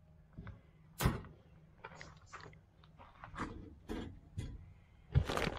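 Wire-mesh crab pots being handled while they are baited with chicken drumsticks: scattered clicks, knocks and rattles, with a sharp knock about a second in and a louder clatter near the end.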